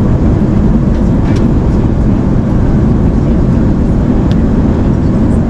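Steady low rush of an Airbus A380's cabin noise in flight: airflow and engine noise. Two faint light clicks stand out, about a second in and again near the end.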